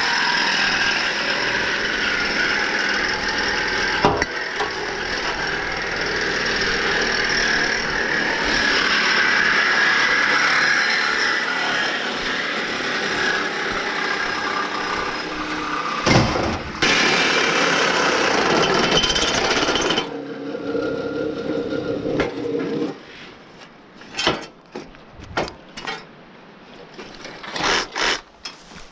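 Reciprocating saws cutting through the burned trailers' steel frame parts, a steady rasping that runs for about twenty seconds with one brief break. The cutting then changes pitch and stops a few seconds later, leaving scattered metal clanks and knocks.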